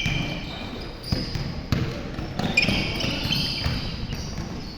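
Basketball game play on a court: the ball bouncing several times and sneakers squeaking sharply on the floor, over a murmur of voices.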